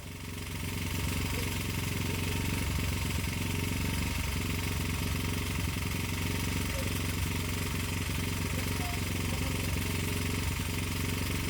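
An engine running steadily at a constant speed. It gets louder about half a second in, then holds an even level.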